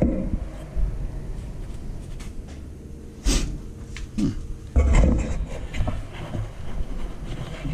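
Handling noises: scattered knocks and rustles over a low rumble, with louder knocks about three seconds in and again around five seconds.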